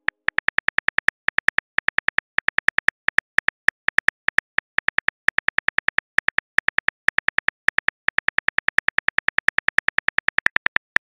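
Simulated phone-keyboard typing clicks, one per letter as a text message is typed out. The sharp, identical clicks run rapidly and evenly, several a second, with a few brief pauses.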